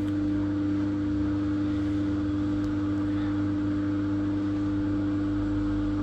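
Balay front-loading washing machine with a newly replaced motor, just started on its spin program, running with a steady electric hum. The drum is about to start turning.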